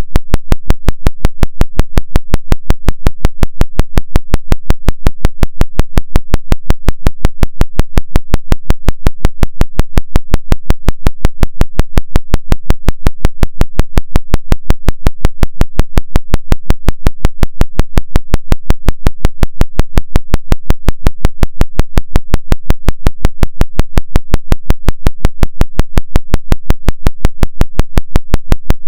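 Synthesized brainwave-entrainment tone pulsing on and off steadily at about five and a half pulses a second, the 5.5 Hz theta rate, over a steady low hum.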